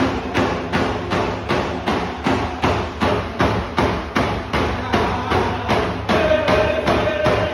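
Several large hide-covered frame drums struck together with sticks in a steady beat of about two strikes a second.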